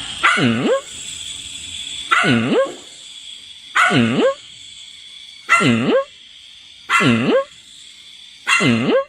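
A dog barking six times at an even pace, about one bark every second and a half. Each bark dips in pitch and rises again.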